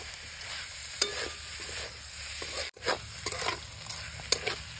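Paneer bhurji being stirred and mixed in a steel kadhai with a spatula: irregular scrapes and knocks of the spatula against the pan over a steady sizzle of the frying masala. The sound drops out for an instant just after halfway.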